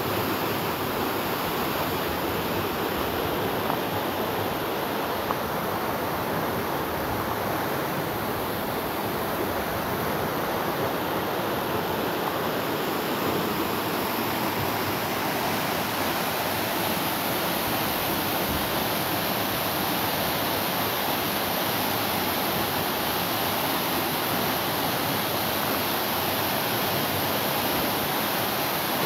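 Waterfall pouring into a pool, a steady rushing noise that grows a little brighter in the second half.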